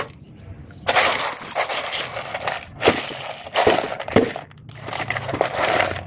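Crunching and rattling of plastic toy vehicles and small gravel being handled, starting about a second in and coming in several bursts.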